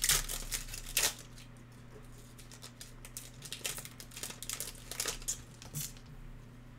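Foil wrapper of a trading-card pack being torn open by hand: two sharp tears near the start and about a second in, then lighter crinkling as the wrapper and cards are handled.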